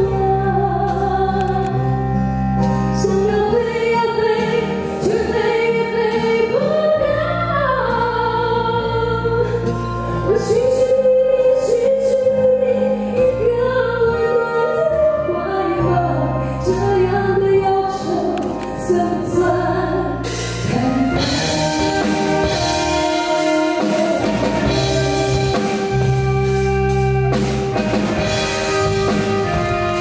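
A woman singing a Mandarin pop song live into a microphone, backed by a band with drum kit and keyboard. About twenty seconds in, the accompaniment turns fuller and brighter.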